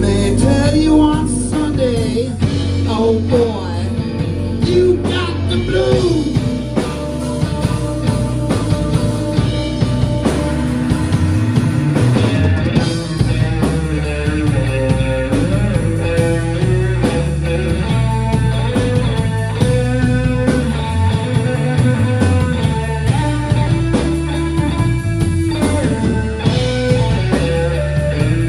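A three-piece blues-rock band playing live: electric guitar playing a lead line with bent notes over bass guitar and a drum kit.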